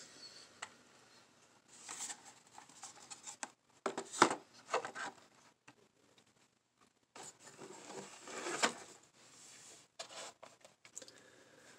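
Rustling and clicking of a cardboard shipping box and carded blister packs being handled as a die-cast toy car package is pulled out, in scattered short bursts, loudest about four seconds in.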